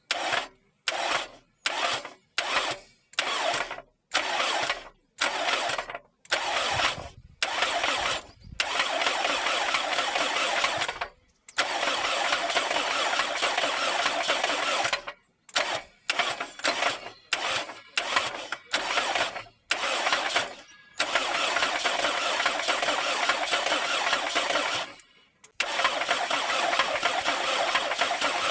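Starter motor cranking a Toyota 7A-FE engine with its valve cover off: first a run of short blips about half a second apart, then several longer cranks of a few seconds each. A knock comes from the cylinder head as the camshaft turns, which the owner can't yet place.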